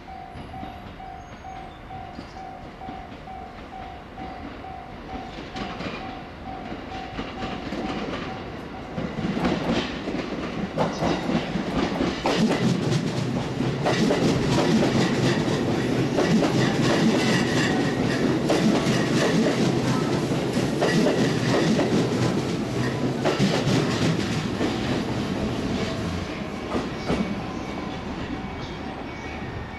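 A repeating electronic beep, about two a second, for the first several seconds. Then a JR East E531 series electric train pulls into the platform: its running noise and wheels clacking over rail joints build from about nine seconds in, stay loud, and ease near the end as it slows.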